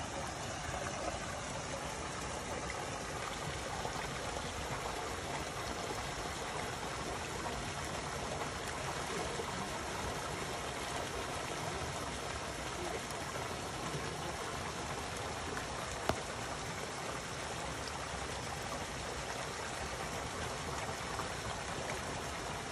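Steady rushing of a mountain stream, with a single faint click about two-thirds of the way through.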